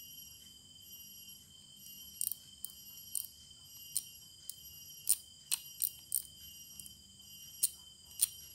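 Star drag of a Zorro Superior baitcasting reel being turned by hand, giving about a dozen sharp metallic clicks at an irregular pace from about two seconds in. A faint steady high-pitched insect chirring runs underneath.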